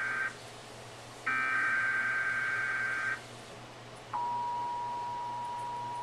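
Emergency Alert System test tones played through a television: a digital SAME header data burst cuts off just after the start, a second burst of about two seconds follows, and about four seconds in the steady two-tone EAS attention signal begins.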